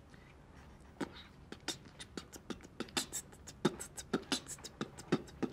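Beatboxing: a person making drum sounds with the mouth, a quick, even rhythm of kicks and snares that starts about a second in.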